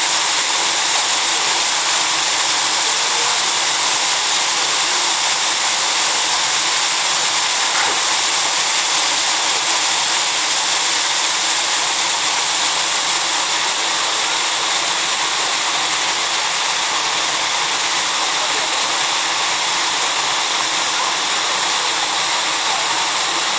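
Water pouring steadily into a polar bear pool and churning the surface: a constant, even rushing hiss.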